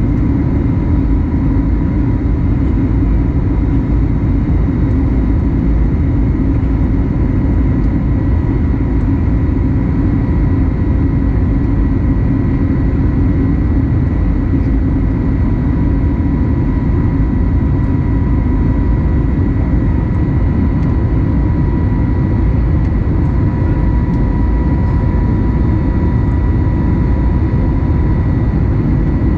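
Airbus A320neo cabin noise in flight, heard from a window seat over the wing: a steady drone of the turbofan engine and rushing air, with a steady whine on top.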